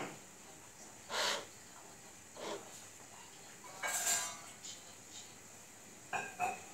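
Scattered short scrapes and light clatters of painting tools and a small toy car handled at a table, a few seconds apart, with a brief child's vocal sound near the end.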